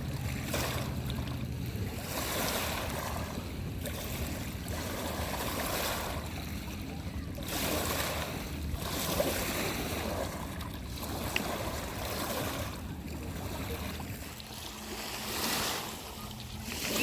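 Small lake waves washing onto a rocky shore, with a swell of water noise every couple of seconds as each wave breaks and draws back over the stones.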